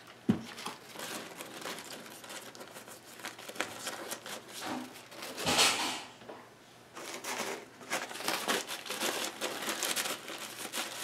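Paper coffee filter rubbing and crinkling against a metal CPU water block as old thermal paste is wiped off with isopropyl alcohol, in irregular rustling strokes. There is a sharp knock just after the start, and a louder rustle about halfway through.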